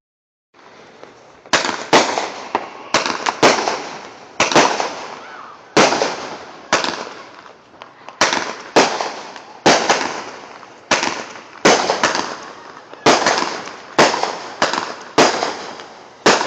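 Consumer fireworks going off in a rapid series: about twenty sharp bangs, one every half second to a second, each trailing off in a fading crackle.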